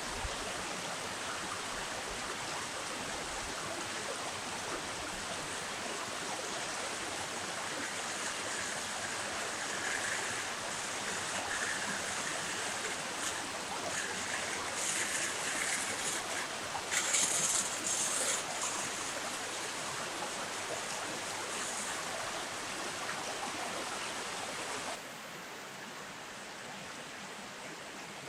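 River water flowing, a steady rushing noise, with a few brief, sharper high-pitched sounds over it about two-thirds of the way in. The water noise drops abruptly in level near the end.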